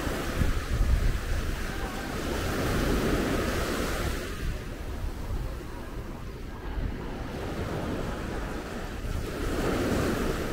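Small surf breaking and washing up onto a sandy beach, swelling and easing in waves, with wind rumbling on the microphone, strongest in the first second or so.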